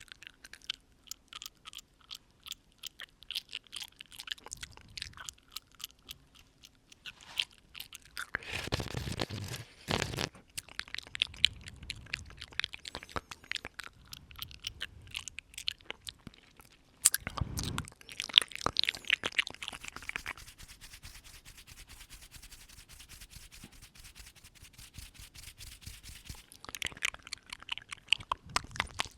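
Close-miked ASMR mouth sounds: rapid wet clicks and smacks of lips and tongue, with two longer breaths blown at the microphone, about a third of the way in and again past the middle.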